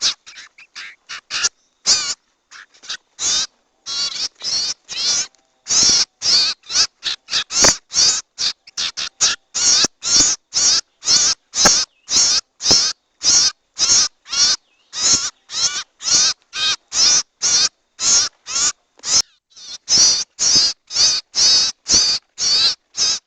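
Harsh, raspy bird calls from a lure recording used to attract sirtu / cipou birds. They come ragged and fainter for the first few seconds, then settle into a steady run of about two short calls a second.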